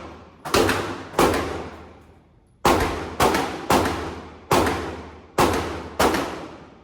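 Glock 45 9mm pistol fired eight times in an uneven string, some shots in quick pairs, each report ringing out in a long echo.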